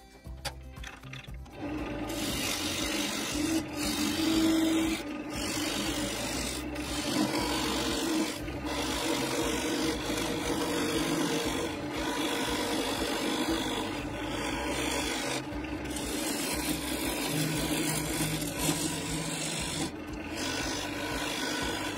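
A gouge cutting spinning Chinese elm on a wood lathe: a steady rasping shear as shavings peel off, with the lathe's steady hum underneath. It starts about two seconds in and has short breaks every couple of seconds as the tool eases off the wood.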